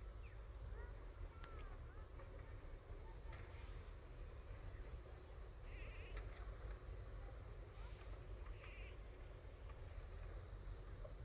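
Insects trilling steadily in one unbroken high-pitched drone, with a faster pulsing chirp just above it, over a low rumble.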